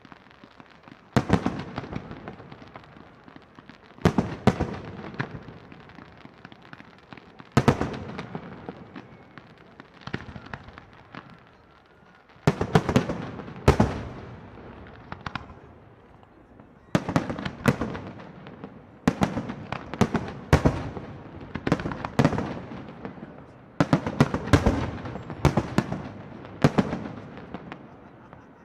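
Professional fireworks display: aerial shells bursting with loud bangs, singly or in quick clusters every few seconds, each bang trailing off before the next.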